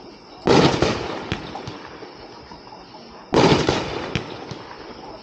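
A 1.4G consumer fireworks cake, Cornstorm from the RDX line, is firing. There are two loud bursts about three seconds apart, each followed by a scatter of small crackling pops from its red strobing willow stars.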